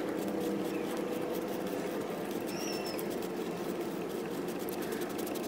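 Plastic oil filter housing cap on a 6.0L Powerstroke diesel being unscrewed by hand, its threads giving faint ticking and scraping over a steady outdoor background hum. A bird chirps briefly about two and a half seconds in and again near the end.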